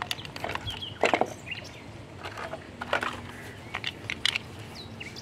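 Scattered clicks and knocks of hard plastic toy parts being handled: a toy backhoe loader and its loose wheels picked up and moved about on concrete.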